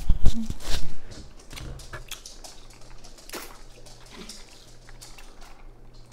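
Close-miked eating and drinking noises: a burst of loud knocks and mouth sounds in the first second, then quieter sipping from cups with scattered small clicks over a faint low hum.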